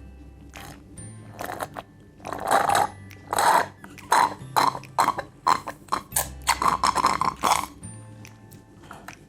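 Mouth eating sounds from someone eating spicy instant ramen: a quick series of short, loud noisy slurps and smacks, over steady background music.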